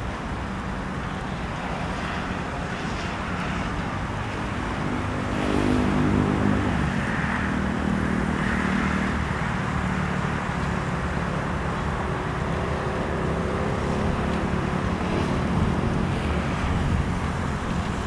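Cessna 172 propeller engine at takeoff power during the takeoff roll of a touch-and-go, getting louder about six seconds in as the aircraft accelerates and lifts off.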